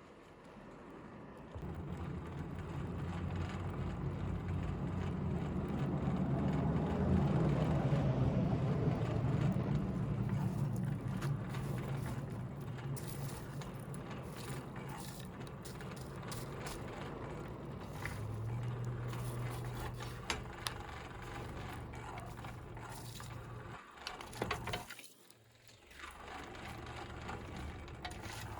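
Hand-crank forge blower whirring as it is cranked. It spins up to a peak, then runs on more slowly, with scattered clicks and crackles in the second half.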